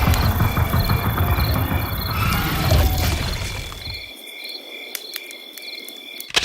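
Night insects chirping in a steady rhythm, about twice a second, with a loud low rumble under them that drops away about four seconds in. A short loud noise comes right at the end.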